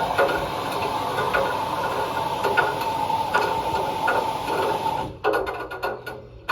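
Small washing machine running with a steady motor whine and dense rattling for about five seconds, then stopping abruptly, followed by a few scattered clicks.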